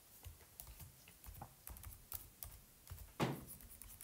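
Faint, irregular clicking of computer keyboard keys being typed, with one louder soft knock about three seconds in.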